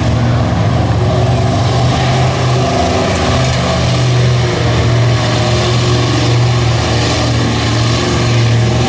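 Pickup truck engine running hard at high, fairly steady revs as the truck ploughs through a mud bog pit.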